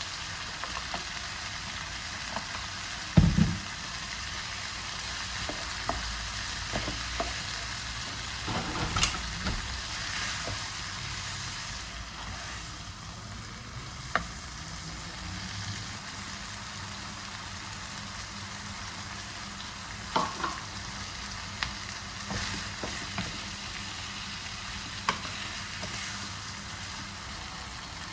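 Food sizzling steadily in a frying pan, with scattered clicks and knocks of a utensil against the pan as it is stirred, the loudest a thump about three seconds in.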